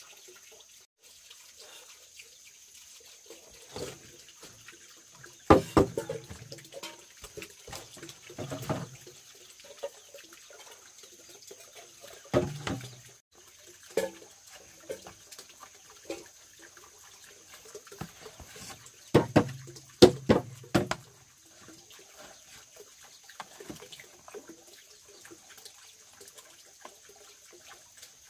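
Water splashing and sloshing in short, irregular bouts with knocks, loudest about six seconds in and again around twenty seconds in.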